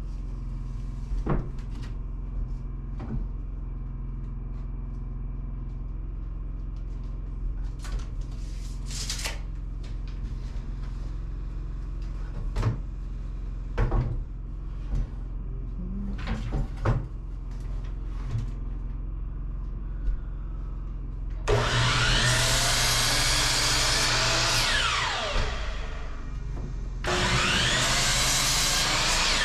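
A power saw crosscutting 2x4 lumber to length, twice, each run lasting a few seconds with the blade's pitch falling as it winds down. Before the cuts there is a steady low hum with scattered knocks and clicks of the boards being handled.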